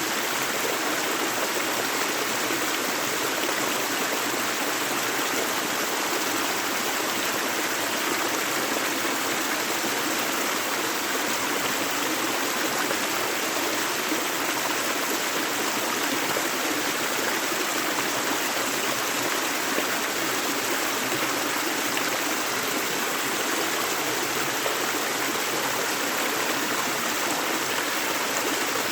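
Steady rushing of a gentle river flowing over stones, with an even, unbroken splashing and no change in strength.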